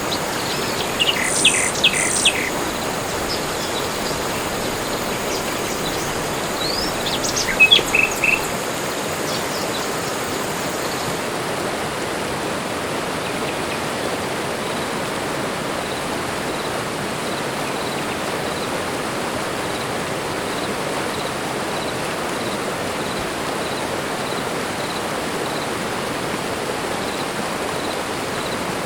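Tropical forest ambience: birds chirping in two short clusters within the first nine seconds over a steady, even rushing noise. After that the rushing noise goes on alone with a faint, regular ticking.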